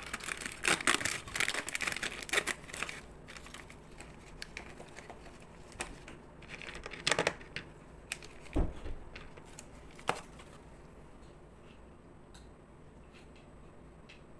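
Gold foil inner pack of a box of Lotte Macadamia chocolates being crinkled and torn open: dense crackling for about three seconds, then a few scattered clicks and knocks.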